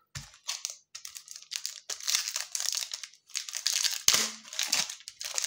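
Foil wrapper of a Panini Prizm trading-card pack crinkling in the hands and being torn open, in a run of short, irregular rustling bursts.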